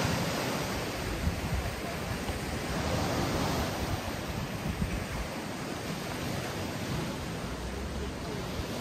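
Sea surf breaking and washing up onto the beach, a steady rush of water.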